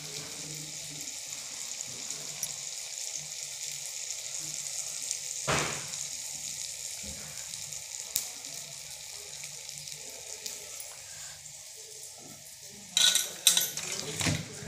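Hot oil sizzling steadily in a kadhai as two rice-flour anarse deep-fry, with a single knock about five and a half seconds in. Near the end comes a short burst of clattering utensils.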